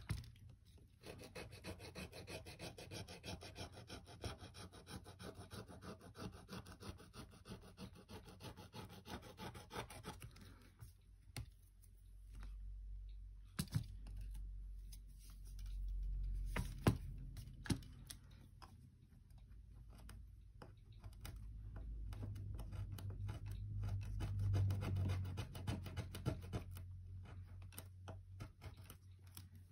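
Rapid, steady scratching and scraping from a tool worked against a tablet being taken apart, lasting about ten seconds, then scattered clicks and light taps.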